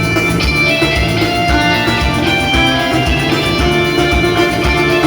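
Live band music with guitar over a steady beat, no singing.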